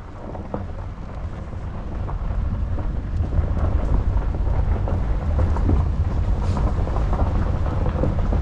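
Vehicle driving along a campground road: a low, steady rumble of engine and tyres with scattered small crackles. It grows louder from about two seconds in.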